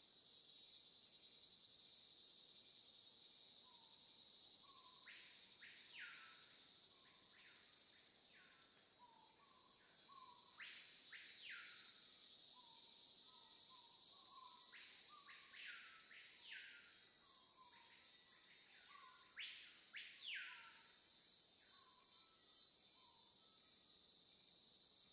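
Steady high-pitched drone of insects, with a bird calling in short, sharp repeated notes in loose clusters through the middle.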